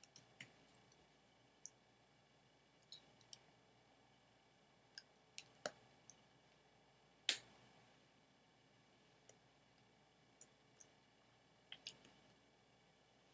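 Quiet room tone with scattered faint clicks and taps from the hands and wrist bracelets of a person signing, one sharper tap about seven seconds in.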